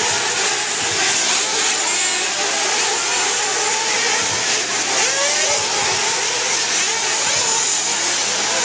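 Several 1/8-scale nitro RC buggy engines running together, their overlapping whines rising and falling as they rev.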